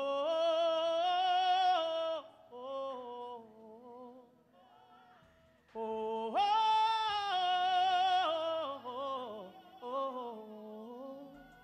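A man singing a gospel song solo, holding two long high notes of about two seconds each, the second about six seconds in, with softer melodic runs and a wavering note between them.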